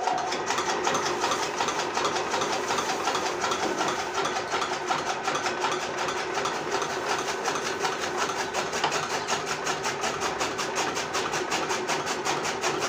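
Electric-motor toka (chaff cutter) switched on and running steadily, its flywheel and blades spinning with a fast, even chatter as green fodder is fed in and chopped. It is a test run of the machine just fitted with new main bearings, which had worn loose and made it cut the fodder poorly.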